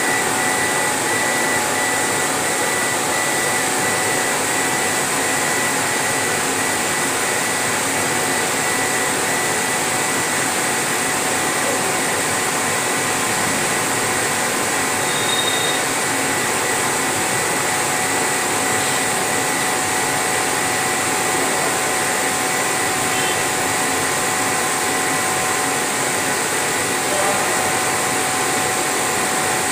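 Laser engraving machine running while its head engraves a sheet: a steady, even blowing noise like a fan or blower, with a few faint steady whining tones over it.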